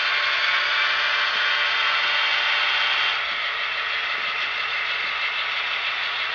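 Athearn SD70ACe model locomotive's onboard sound decoder playing diesel engine sound through its small speaker as the model runs, its volume raised through decoder CV settings. The engine sound eases a little quieter about three seconds in.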